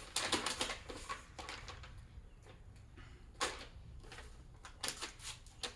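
Piston ring packaging and its paper instructions being handled: scattered rustles and light knocks, the loudest about three and a half seconds in.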